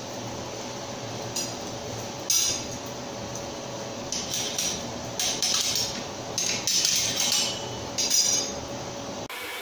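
Steel bars clinking and clattering against one another and against metal as they are handled, in several bursts, over a steady workshop machine hum. Near the end the hum changes to a different, airier blowing sound.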